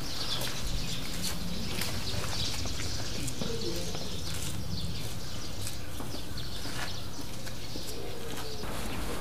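Steady outdoor background noise with faint, scattered bird chirps and a few soft low calls.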